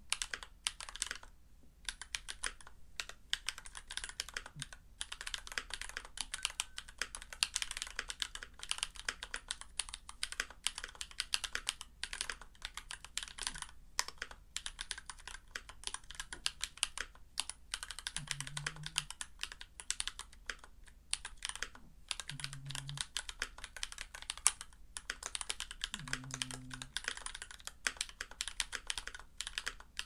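Typing on a Glorious GMMK Pro mechanical keyboard with lubed Glorious Panda tactile switches: a steady stream of keystroke clacks, with a few short pauses.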